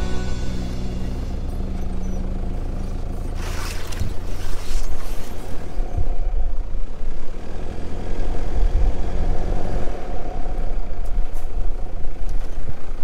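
Vehicle engine running steadily with tyre noise as it drives along a track. There is a brief rush of noise about three and a half seconds in, and the rumble gets a little louder after that.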